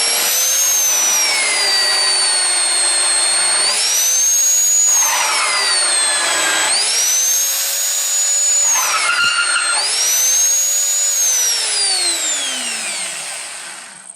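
Electric drill driving a countersink bit into steel, opening up drilled holes. The motor whine sags each time the cutter bites, about three times, and climbs back between cuts. Near the end it winds down as the drill coasts to a stop.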